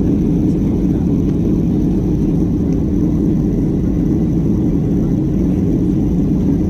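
Steady low roar of a Boeing 737-800 climbing after takeoff, heard from a window seat inside the cabin: the CFM56-7B engines at climb power and the air rushing past the fuselage.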